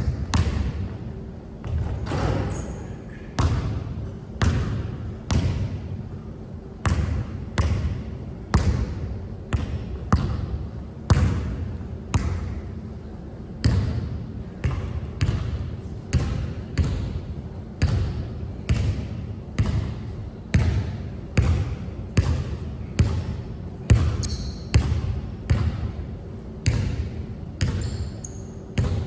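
Basketball being dribbled steadily on a hard court, each bounce a sharp smack, about two bounces a second.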